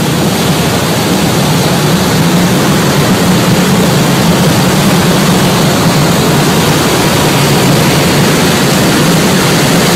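Tour boat's engine running steadily with a low drone, under a loud rush of wind and water noise.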